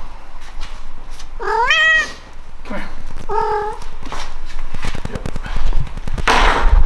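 Domestic cat meowing twice: a rising meow about a second and a half in and a shorter, level one about three seconds in. A loud burst of rustling noise comes near the end.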